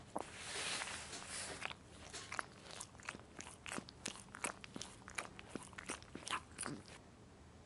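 A pug's mouth and nose noises: a breathy rush of air in the first second or so, then a run of irregular sharp wet clicks and smacks.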